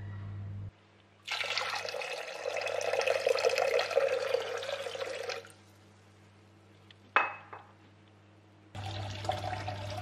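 Water pouring into a pot of pearl barley for about four seconds. A single sharp clink follows about seven seconds in, then water pours again near the end.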